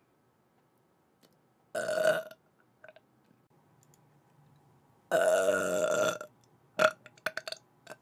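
A woman burping twice: a short burp about two seconds in, then a longer, louder one about five seconds in lasting about a second. A few short clicks follow near the end.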